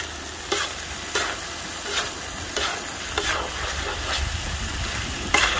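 Flat metal spatula scraping and turning duck pieces on a large tawa griddle, with a steady sizzle of frying underneath. It makes about six scraping strokes at uneven intervals as the fried ginger-garlic paste is mixed into the meat.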